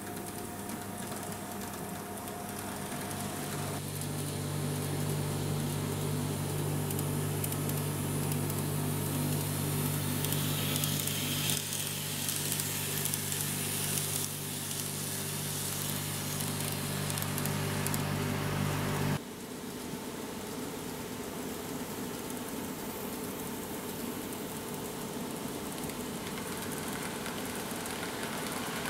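KATO N gauge model trains running over plastic girder-bridge track: a steady low motor hum under a rolling rattle of the wheels on the rails. About two-thirds of the way through the sound changes abruptly and the low hum drops out, leaving a lighter rolling noise.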